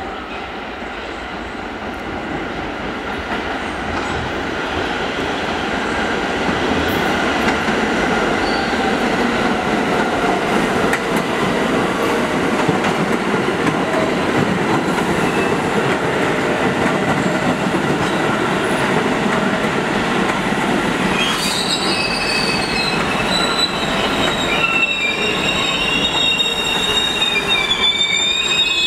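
R46 subway train running past on steel rails, a steady rumble of wheels that grows louder over the first several seconds. From about two-thirds of the way through, high-pitched wheel squeal rises over it and keeps on to the end as the wheels grind along the curved track.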